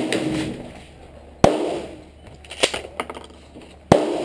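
Two loud gunshots, about a second and a half in and near the end, each with a short ringing tail, plus the fading tail of a shot fired just before. A few lighter clicks and knocks fall between them.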